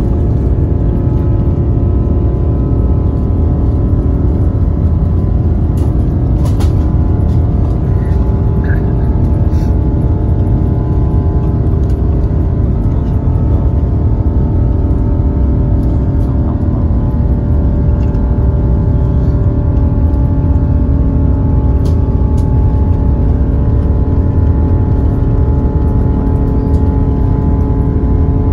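Jet airliner's engines running at steady low power as it taxis, heard from inside the cabin over the wing: a constant low rumble with several steady humming engine tones.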